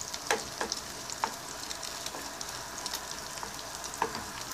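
Ground beef and eggs sizzling in a frying pan as a wooden spoon stirs them, with a few sharp scrapes and knocks of the spoon against the pan, mostly in the first second and once near the end.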